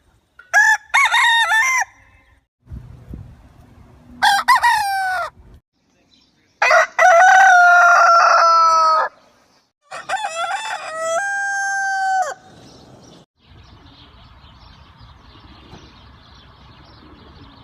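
Roosters crowing: four separate cock-a-doodle-doo crows in a row, the third the longest and loudest, followed by a few seconds of faint background hiss.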